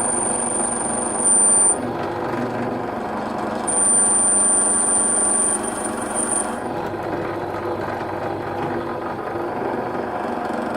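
A power tool running steadily under load, with a thin high whine that comes in briefly about a second in and again from about four to six and a half seconds.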